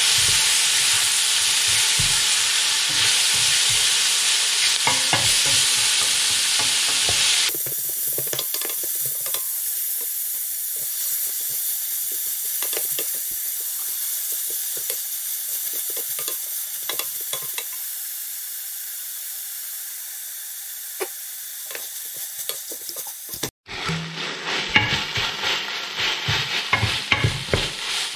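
Sliced onions sizzling in hot oil in a stainless steel pot, stirred with a spatula that scrapes and knocks against the pot. The sizzle drops sharply about seven seconds in and slowly fades, then cuts out for an instant near the end and comes back louder with quick stirring knocks.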